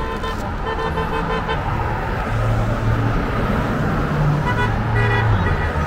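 Vehicle horns honking over traffic noise: short repeated beeps, and two longer low horn blasts of about a second each, one near the middle and one near the end.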